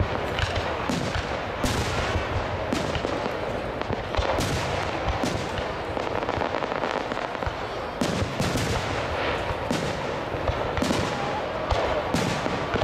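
Aerial fireworks shells bursting one after another: irregular sharp booms, about one or two a second, over a continuous wash of crackling and echo.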